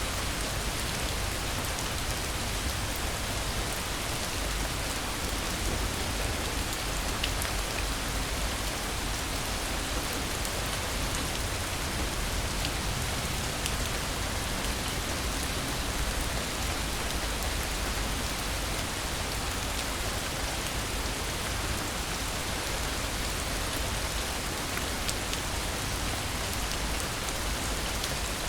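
Steady rain falling on surfaces, an even hiss with occasional faint drop ticks.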